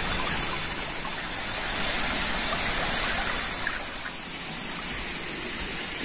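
Running water: a steady rushing trickle like a small stream, with a thin steady high tone throughout.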